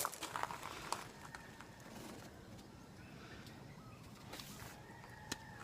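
A few faint clicks and knocks in the first second, then quiet outdoor background with faint short bird chirps.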